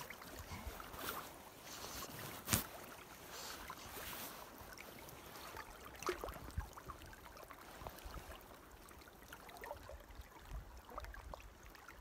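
River water flowing steadily and softly, with a sharp knock about two and a half seconds in and a few small clicks.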